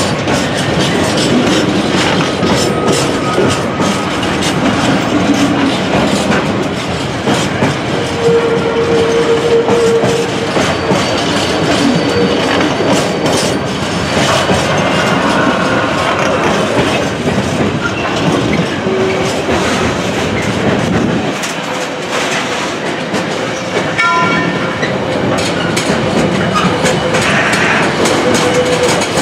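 Container freight train's flat wagons rolling past on the near track: a continuous rumble of steel wheels on rails, with repeated clicks as the wheels run over rail joints and a few brief whining tones.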